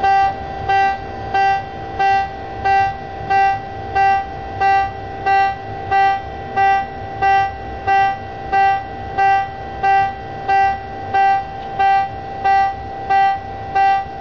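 USS Dolphin submarine's general alarm sounding: a loud pitched tone pulsing about one and a half times a second, evenly repeated. It is the alarm used for any emergency that is not a fire, a flooding or a collision.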